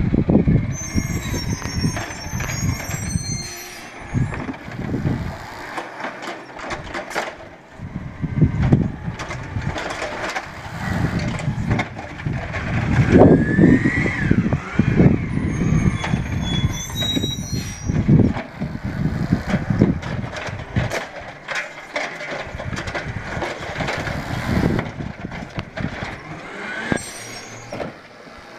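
Peterbilt 320 side-loader garbage truck's diesel engine running and surging as the truck pulls up to the curb, with air-brake hiss and high brake squeals, once about a second in and again about 16 to 19 seconds in. Near the end its automated arm grips a recycling cart.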